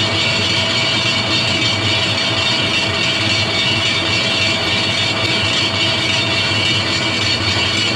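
Large metal lathe running steadily, spinning a steel driveshaft tube while a parting tool cuts into it. It is a loud, even mechanical drone with several steady whining tones.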